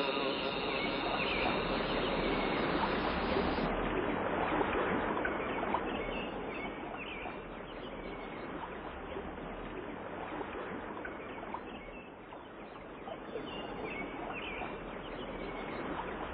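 Running water with small birds chirping over it.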